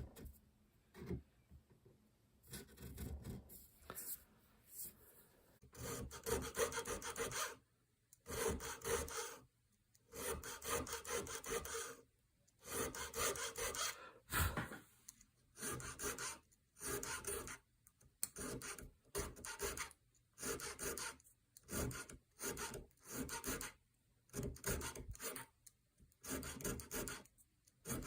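A hand checkering tool rasping across a wooden gunstock as checkering lines are cut. The strokes are faint at first, then come as a run of separate back-and-forth rasps that speed up to about one a second.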